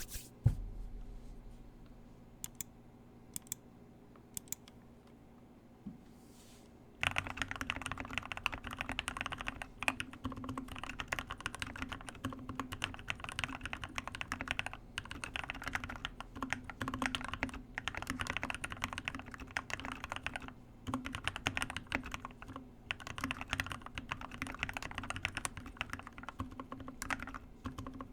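Keychron K6 mechanical keyboard with lubed and filmed Gateron Black Ink switches: a thump and a few single keystrokes, then fast continuous typing from about seven seconds in.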